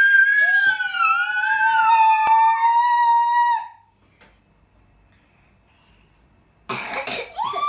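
A long, high-pitched wavering howl that slides down in pitch and stops about three and a half seconds in; after a few seconds of quiet, a short breathy rush of noise, then a second high howl starts near the end.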